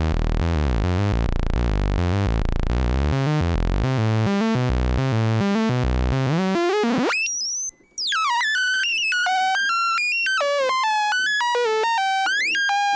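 ARP Avatar synthesizer oscillator playing a stepping sequence of notes. For about the first seven seconds the notes are low and buzzy with a warbling, FM-like modulation whose cause is unclear; the tester suspects the oscillator is modulating itself, though to him it doesn't really sound like FM. About seven seconds in, the sound sweeps up, drops out briefly, and carries on as thinner, higher stepped notes.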